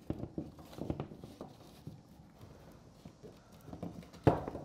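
Cables being pulled out through a recessed in-wall box, knocking and rubbing against the box and drywall in a run of irregular light knocks, with one sharper knock near the end.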